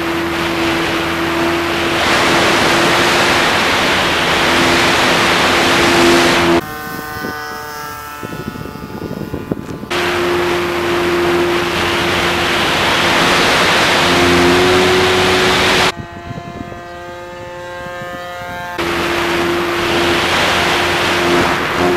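Onboard-camera audio of the FMS P-51 model plane in flight: a loud rush of air over the microphone with a steady drone from its electric motor and propeller. It cuts out abruptly twice for about three seconds, leaving a quieter set of steady tones.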